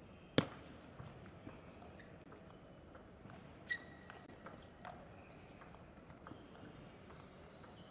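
Table tennis rally: the plastic ball clicking sharply off the rackets and the table in quick alternation, the loudest hit about half a second in. A short high squeak sounds about halfway through.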